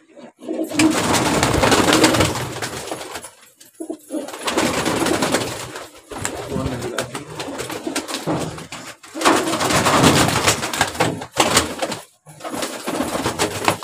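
Pigeons flapping their wings in several loud flurries as they are chased and caught by hand in a small loft, with a pigeon cooing at the start.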